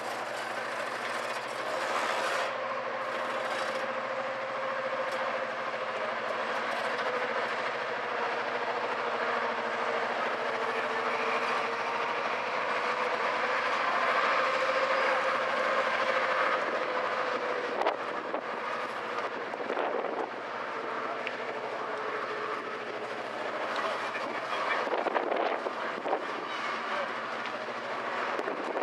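Paxman Valenta diesel engine of prototype HST power car 41001 running while standing, with a steady hum and a whine that drifts a little in pitch. A few knocks come in the later part.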